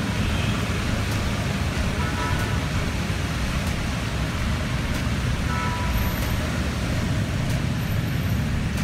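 Steady road traffic noise: a continuous low rumble with an even hiss over it, with no single event standing out.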